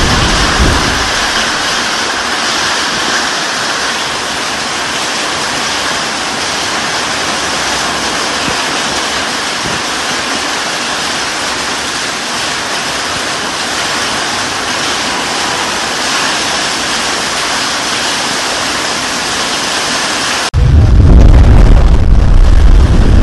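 Heavy rain pouring down, a dense, even hiss. About twenty seconds in it gives way abruptly to a much louder, low rumble over the rain.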